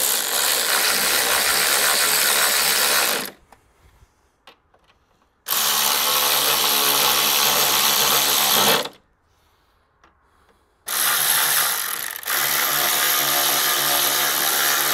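Power driver with a T30 Torx bit spinning in three runs of about three seconds each, with short pauses between, as it drives the strut brace bolts home.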